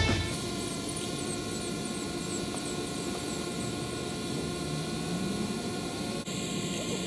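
DJI Phantom 3 Pro quadcopter hovering, its propellers making a steady multi-tone hum, with one tone rising slightly about five seconds in.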